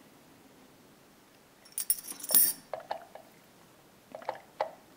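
A key and a metal lock cylinder handled in the fingers: a brief metallic jingle about two seconds in, then a few light clicks and taps.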